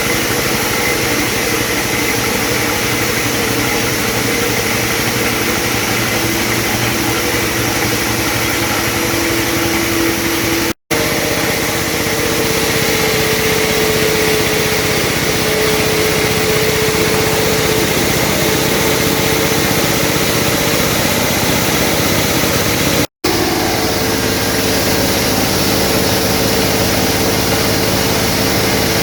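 Corn flour milling machine running steadily: a loud, even mechanical din with a steady hum. It drops out for an instant twice at cuts.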